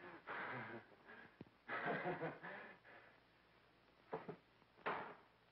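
Short bursts of a person's voice without clear words, four times.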